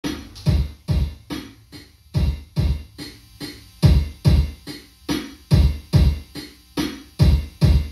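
Circuit-bent B. Toys Meowsic toy keyboard playing on its own: an electronic drum-machine beat of low thuds with sharper, hissy hits between them, in a quick repeating pattern.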